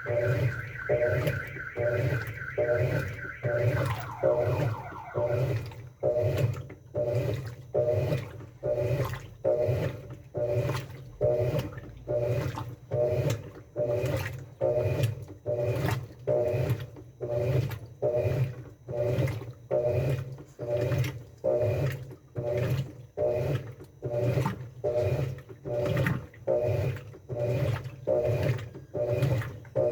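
Top-loading washing machine agitating: water sloshing in a steady back-and-forth rhythm a little more than once a second. A high motor-like whine rides over it for the first few seconds and drops away about four seconds in.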